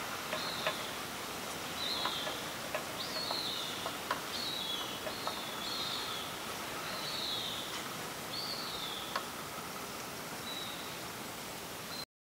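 Outdoor ambience: a steady hiss with a bird calling about ten times, each a short downward-slurred note, and a few faint clicks; it cuts off suddenly near the end.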